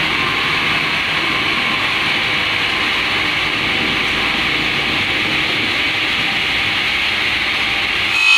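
Blade of an OSC-TITAN 5-axis CNC stone bridge saw cutting a bevel along a stone slab: a steady, loud grinding hiss over the motor's hum. It grows louder just at the very end.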